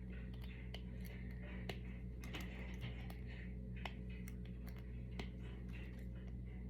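Brain Flakes interlocking plastic discs being pushed together and handled, a scatter of light irregular clicks over a steady low hum.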